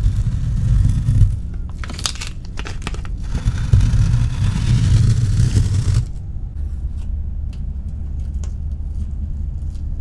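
Painter's tape being peeled up off a floor: a ripping pull for about the first second, a run of crackles, then a longer pull from about three and a half to six seconds in. After that, only faint crinkles and ticks over a low rumble.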